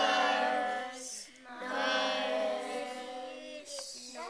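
Voices singing long held notes over a steady low note.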